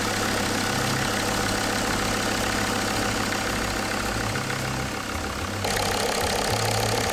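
Mercedes Sprinter T1N diesel engine idling steadily with a diesel clatter, running on freshly replaced injector copper seals. The sound gets louder and brighter about five and a half seconds in, as it is heard close over the injectors.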